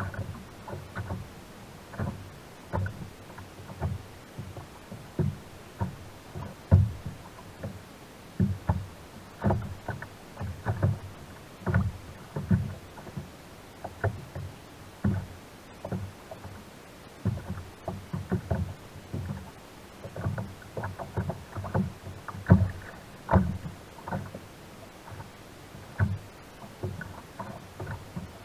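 Small waves slapping against the hull of a sit-on-top kayak floating at sea: irregular short slaps and splashes, one to three a second.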